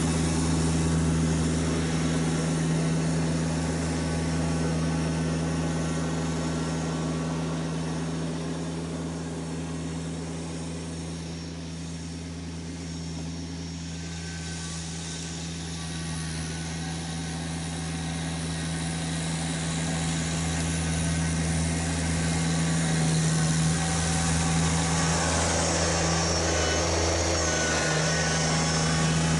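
Kubota BX1870 sub-compact tractor's three-cylinder diesel engine running steadily while plowing. It grows fainter to about halfway through as the tractor moves off, then louder again as it comes back and passes close near the end.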